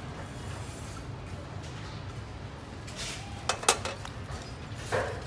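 Chopsticks and a steel pot clinking against a clay pot as braised catfish pieces are tipped in and arranged, with a couple of sharp clinks about three and a half seconds in. A short, louder sound follows near the end.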